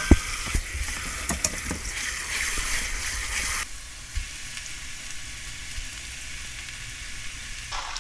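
Tap water running onto blanched dried eggplant strips in a stainless steel colander, with a sharp metal knock at the start and a few lighter clunks. About three and a half seconds in the water stops suddenly, leaving a softer steady hiss.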